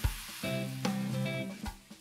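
Background music with a steady beat, over the sizzle of marinated chicken pieces frying in oil and butter in a pan.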